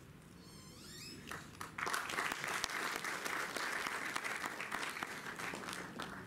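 Audience applauding for someone being honoured on stage. The clapping starts about two seconds in and tapers off near the end.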